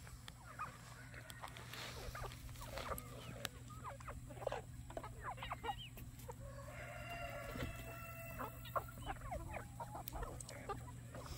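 A mixed flock of chickens clucking and chattering with many short calls, with one longer, held call a little past the middle.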